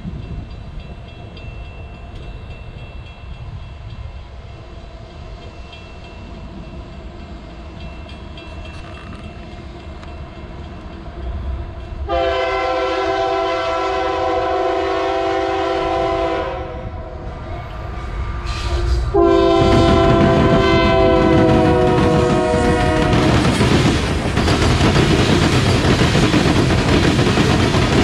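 A freight train led by Union Pacific diesel locomotives approaching with a low rumble. The horn sounds two long blasts, about 12 and 19 seconds in. From the second blast on, the locomotives and tank cars roll past close by with loud steady wheel-on-rail noise and clickety-clack.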